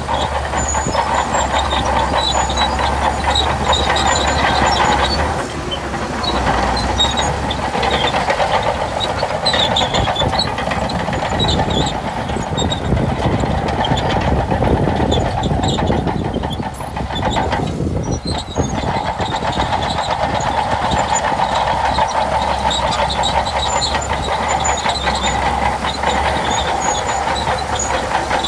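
Shantui DH17C2 crawler bulldozer working: its engine running under load with the clatter of its steel tracks, steady apart from two brief easings.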